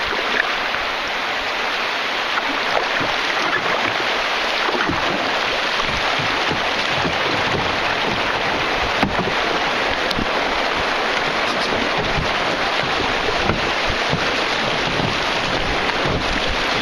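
Steady rush of river water running over a shallow class I shoal, a loud even hiss with no break.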